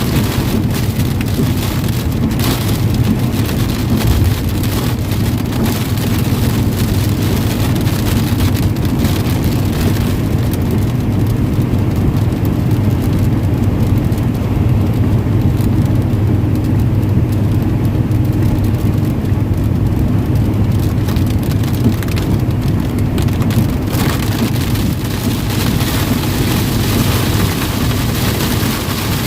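Van driving in heavy rain: a steady low road-and-engine drone with rain hissing on the vehicle. The rain hiss eases for a stretch in the middle and picks up again near the end.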